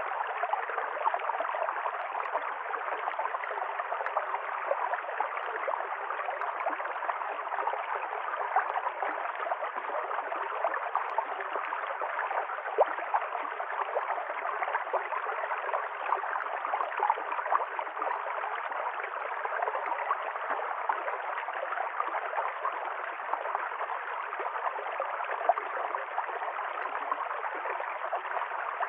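River stream flowing: a steady rush of running water, flickering with many small splashes and no pauses.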